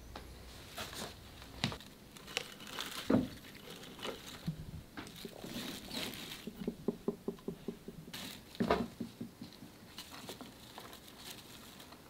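Hands planting small shrubs among rocks in a terrarium: soft rustling of soil and leaves with scattered light taps and clicks. There is a quick run of small clicks in the middle, and louder knocks about three and nine seconds in.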